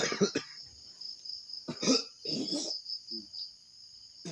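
Crickets chirring steadily in the background, broken by a few short human voice sounds like coughs or brief exclamations near the start and about two seconds in.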